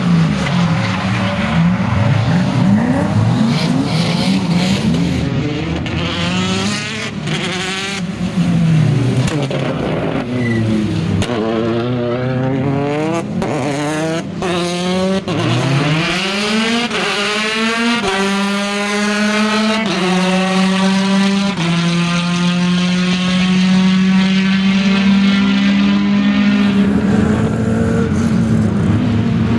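Rally car engines revving hard as cars pass one after another, the pitch sweeping up and down with throttle and gear changes. Past the middle one engine holds high revs for several seconds, its note dropping in steps as it shifts up.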